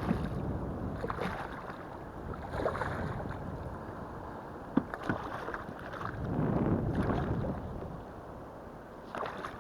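Wind buffeting the microphone and water sloshing against a kayak's hull, with a couple of sharp knocks about five seconds in and a louder surge of water and wind a little later.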